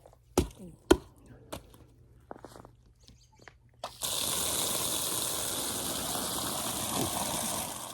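A few knocks and clicks, then about halfway through an outdoor faucet turned on, its water pouring hard and steady into a feed bucket being filled and rinsed out. The flow stops just before the end.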